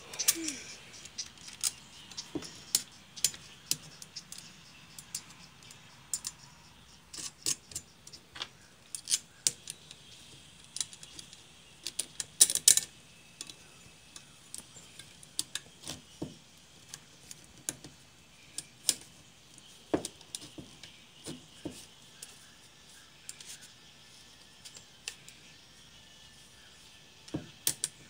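Irregular light clicks and small metallic clinks from hands handling a copper ring on a white tube, with a quick cluster of louder clicks about halfway through.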